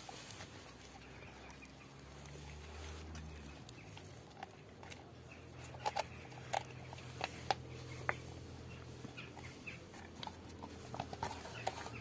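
Nine-month-old Rottweiler gnawing a raw pork bone: chewing with sharp clicks and cracks of teeth on bone, coming thicker from about halfway through, over a faint low hum.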